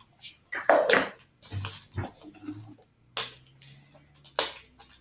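Plastic surprise egg being handled and worked open: irregular crackles and clicks of plastic, about nine in a few seconds.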